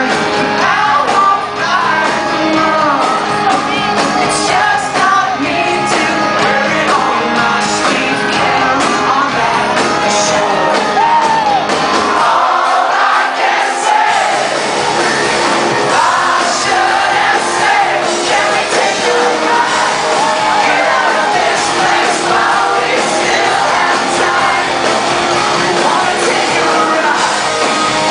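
Live rock band playing with a lead vocal. The bass and drums drop out for about a second and a half midway through, then come back in.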